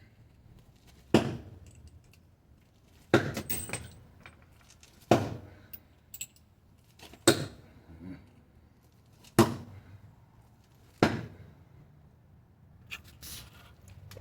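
Old steel door hinge pins, thrown half-spin as throwing spikes, striking and sticking in a target: six sharp hits about two seconds apart, each with a short metallic ring.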